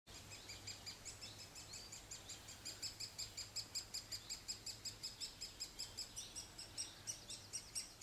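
Great spotted woodpecker chick begging for food from inside the nest hole: a ceaseless, even run of short high chirps, about six a second.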